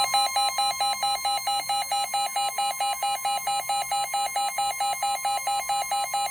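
NOAA Weather Radio receiver sounding its alert for a severe thunderstorm warning. A rapid electronic beep, about four pulses a second, runs over the steady 1050 Hz warning alarm tone.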